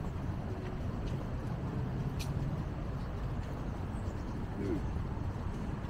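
City street traffic noise: a vehicle engine hums low over general street background and fades out about halfway through. There is a sharp click about two seconds in.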